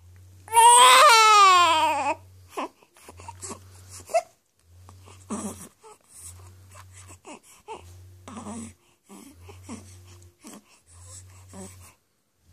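Newborn baby crying: one loud wail falling in pitch about half a second in, then short whimpers and fussing sounds. A low hum pulses on and off about once a second underneath.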